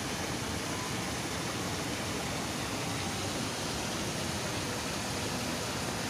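Steady, even rushing noise with no distinct events or voices.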